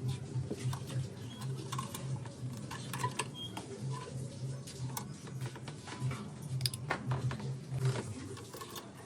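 Light clicks and taps of small objects being handled, over a low hum that pulses on and off.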